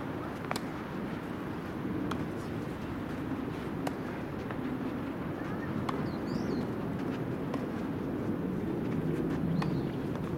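Outdoor ambience with a steady hum of traffic and a few sharp tennis-ball strikes from the far courts, about one every second and a half to two seconds. A bird chirps briefly about six seconds in.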